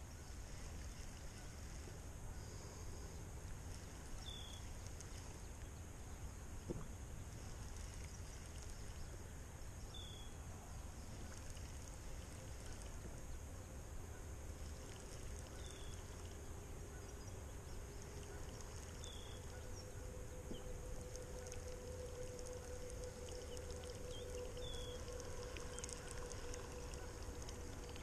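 Faint outdoor pond-side ambience: a steady low rumble with a thin high drone. A short, high, falling chirp repeats about five times, a few seconds apart. A faint steady hum comes in about halfway.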